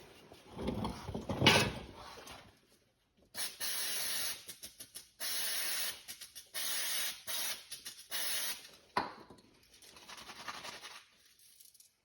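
Aerosol brake cleaner sprayed in four hissing bursts of about a second each, with rag rubbing and handling noise before and after.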